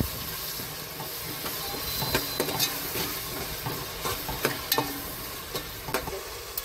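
Onion, tomato and ginger-garlic masala sizzling in hot oil in a metal pot while a spatula stirs it, with irregular scrapes and knocks of the spatula against the pot.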